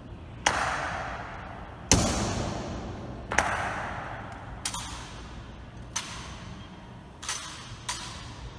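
Ceremonial honour guard's rifle drill: seven sharp clacks, each ringing on in a long echo through the stone hall, spaced a little over a second apart with the last two closer together; the second is the loudest.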